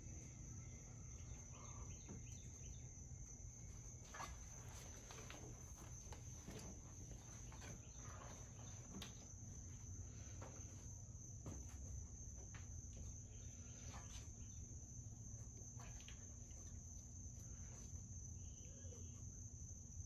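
Faint background ambience: a steady high-pitched whine over a low hum, with scattered light clicks.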